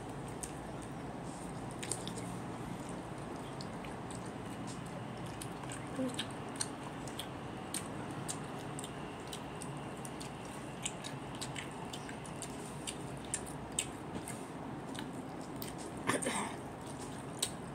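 Close-up eating sounds: chewing, with scattered small clicks and mouth smacks over a steady background hiss. A brief louder rustle comes near the end.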